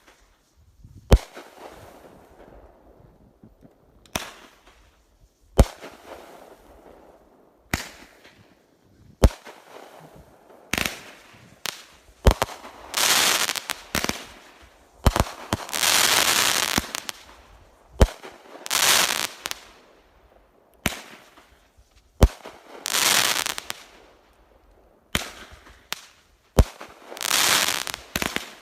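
Pyro Demon 'Firing Line' 500-gram 25-shot firework cake firing shot after shot. It gives a sharp report about every one and a half seconds, and from about twelve seconds in most shots are followed by a second or so of loud hiss.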